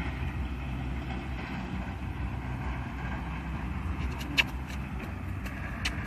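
Wind buffeting a phone microphone outdoors: a steady, uneven low rumble. A few sharp clicks or knocks come through, the loudest about four seconds in.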